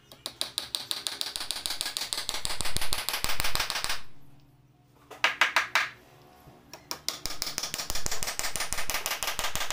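Hammer driving nails into the wooden leg of a bed frame: quick, rapid taps in three runs, a long first run, a short one about five seconds in, and another from about seven seconds in.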